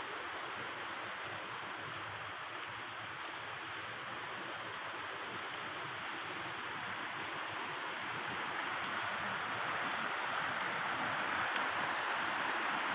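Steady rushing outdoor background noise with no distinct events, slowly growing louder in the second half.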